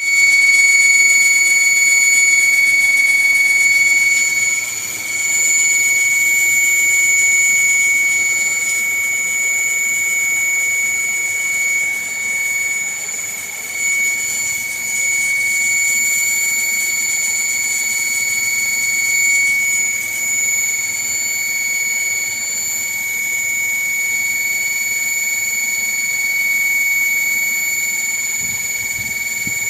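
Panasonic air conditioner running after repair: a steady high-pitched whine over a faint low hum.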